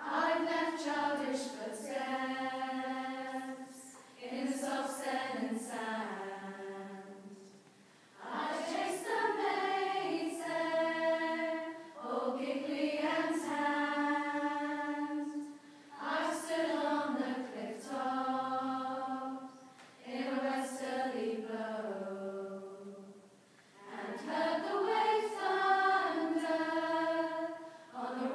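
A women's choir singing a slow song in long held phrases of about four seconds each, with short breaks for breath between them.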